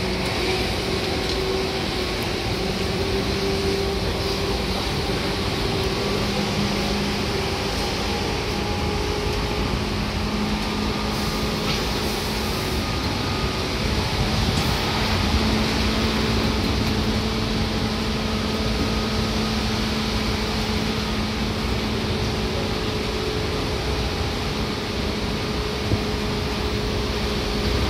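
Seibu 2000 series electric train running, heard from inside the carriage: steady rolling and wheel noise under a low motor hum that steps up slightly in pitch a few times.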